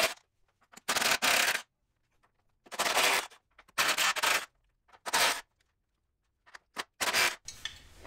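DeWalt cordless impact driver with a deep-well socket hammering on the strut-top mounting nuts, loosening them. It runs in about six or seven short bursts, each under a second, with pauses in between.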